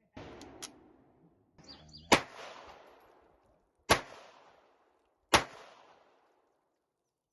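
Three shots from a Mauser HSc pistol, about a second and a half apart, each trailing off in a short echo, after a few fainter clicks and rustling in the first two seconds.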